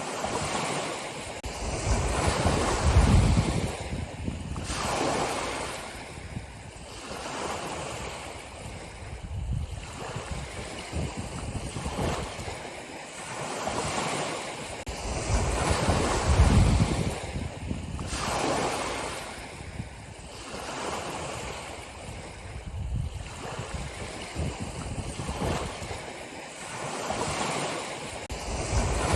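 Ocean waves breaking and washing on the shore, a rushing surge that rises and falls every few seconds.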